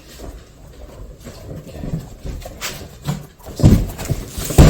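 A few knocks and thuds of things being handled, the loudest two heavy low thuds about three and a half and four and a half seconds in.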